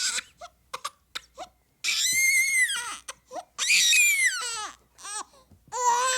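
A baby crying: a few short catching sobs, then long high wails about two seconds and four seconds in, and another starting near the end.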